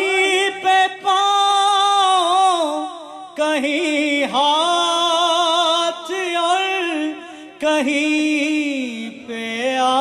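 A man's solo voice chanting a devotional recitation without accompaniment. It comes in long, drawn-out phrases with wavering, ornamented held notes, breaking off briefly about three seconds in and again near the end.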